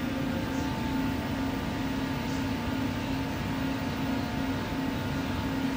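Steady hum and rumble of a metro train heard from inside the carriage: a constant low drone with a fainter, higher steady tone over it.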